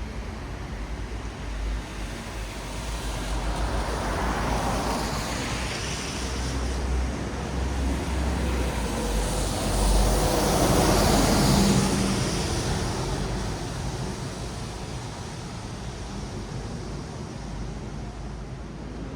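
Cars passing on a wet road, their tyres hissing on the wet surface over a steady low traffic rumble. Two passes swell up and fade, one about five seconds in and a louder one about ten seconds in.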